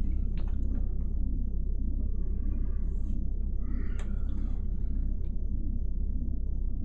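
A steady, deep low rumble, with a few faint clicks and a brief rustle about three to four seconds in.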